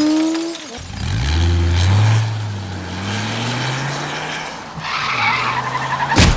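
Sound-designed car action: a sharp hit, then a car engine revving with its pitch climbing over tyre skidding noise, and another sharp hit near the end.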